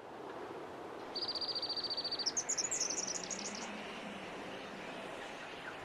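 A bird gives a fast, even trill of high notes about a second in, followed by a second and a half of quick, varied chirps. Steady outdoor background noise runs underneath.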